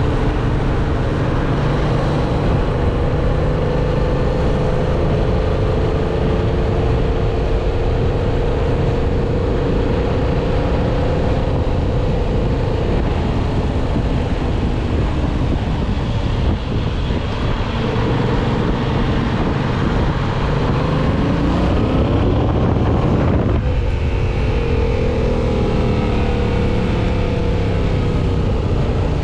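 Yamaha MT-07's 689 cc parallel-twin engine running under way, with wind rushing on the microphone. A little past two-thirds of the way through, the revs climb sharply and then drop off suddenly, as at an upshift or the throttle being closed.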